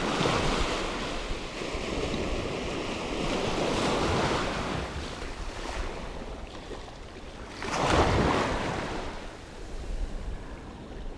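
Small waves breaking and washing up a sandy shore in shallow water, swelling and fading in surges, the biggest about eight seconds in, with wind buffeting the microphone.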